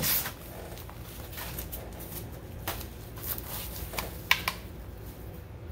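The last hand-sanding stroke of a harmonica slider on sandpaper dies away at the start, then a few light clicks and taps as the harmonica and slider are handled, the loudest a quick pair about four seconds in, over a low steady hum.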